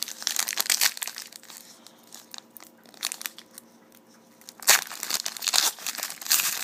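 Foil wrapper of a trading-card pack crinkling and tearing as it is opened by hand: a short burst at the start, then louder, denser crinkling about two-thirds through.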